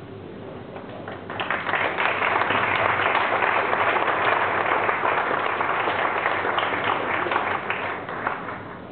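Audience applauding, starting about a second in and tapering off near the end.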